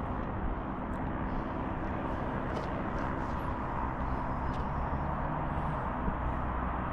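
Jet airliner approaching to land, a steady roar.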